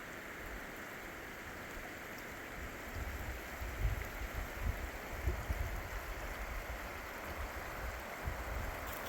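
Cumberland River water running steadily over a low, shallow stretch, with irregular low rumbles from about three seconds in.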